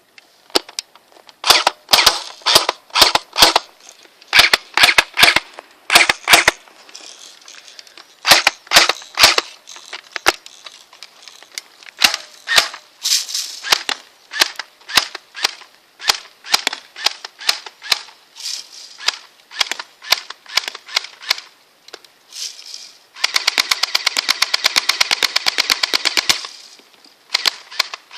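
Airsoft MP5 replica firing: sharp single shots in quick runs, then a rapid fully automatic burst of about three seconds near the end, followed by a couple more single shots.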